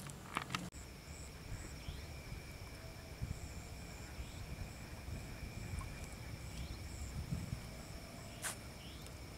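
Insects trilling steadily at several different pitches, one of them pulsing in short, evenly spaced bursts; the trills start about a second in. A few clicks in the first second and one sharp click near the end, over low rumbling handling noise.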